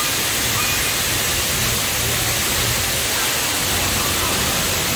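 Steady rushing hiss of falling water, like rain or a waterfall, in the ride's rainforest scene, with a few faint short chirps.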